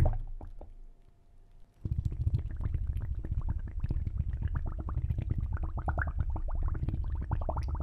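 Bowhead whale call: a rapid, continuous string of low pulses with fainter higher tones rising and falling over them, starting about two seconds in.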